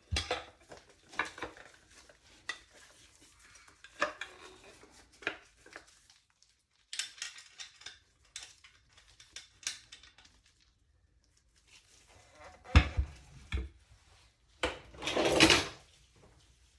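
Clicks, knocks and scrapes of metal and wooden rifle parts being handled during reassembly of a Remington 514 .22 single-shot: the barrel and action going back into the stock, held by its single takedown screw. A sharp knock comes about 13 seconds in, and a longer scrape follows a couple of seconds later.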